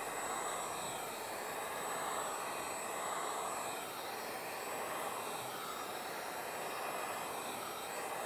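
Heat gun running steadily, its fan blowing hot air onto automotive window tint film to heat-shrink it to the glass. The rush swells and fades gently as the gun is swept back and forth.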